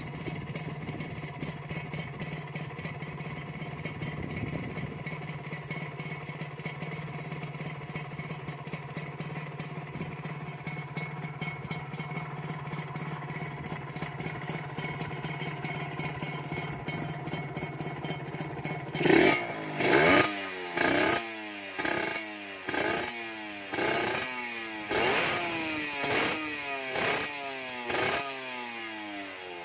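Yamaha 125ZR's two-stroke single-cylinder engine through an aftermarket ICE exhaust, idling steadily, then blipped about nine times in quick succession from about two-thirds of the way in, each rev rising and falling back.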